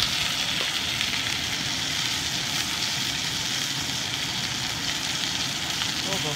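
Ribeye steak sizzling steadily as it sears in hot, smoking canola oil in a cast iron pan.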